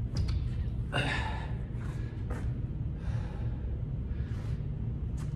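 A man breathing hard from exertion, with short, sharp gasping breaths every second or so. A steady low hum runs underneath.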